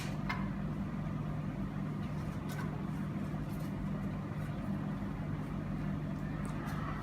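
Steady low background hum, with a few faint brief clicks or rustles.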